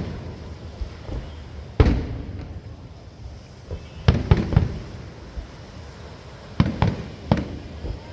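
Fireworks exploding in scattered bangs, each trailed by a short rumbling echo: one about two seconds in, a quick run of three around four seconds in, and another run of three near seven seconds.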